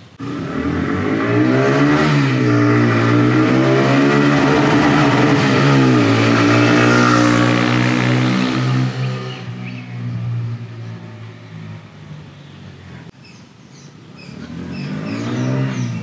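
TVS Raider 125's air- and oil-cooled single-cylinder 125cc engine revving as the motorcycle rides past. The engine note comes in suddenly and loud, its pitch dips and climbs again twice, then fades away about ten seconds in and builds up again near the end.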